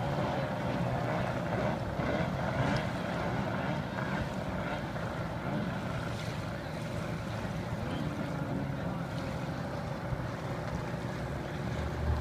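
Racing hydroplane engines running steadily as the boats circle the course, with a wavering high engine whine in the first seconds.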